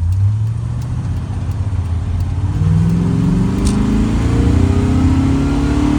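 Truck engine accelerating under load: a low drone at first, its note climbing steadily from about halfway through.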